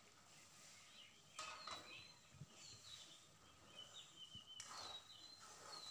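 Faint sounds of a spatula scraping twice through thick curry in a metal kadhai as it is stirred, with faint bird chirps in the background.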